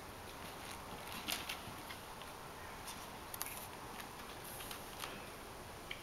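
Faint scratching and scuffling of Persian kittens' claws on a sisal wave scratcher and carpet as they scramble over it, with a few short scratches about a second in and again between three and five seconds.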